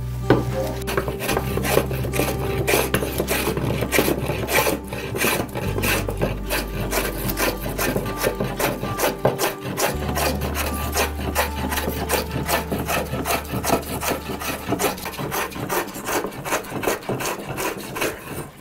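Fore plane taking heavy shavings off a wooden bench top in quick strokes, about three a second, a rasping hiss with each pass as it knocks down the high spots.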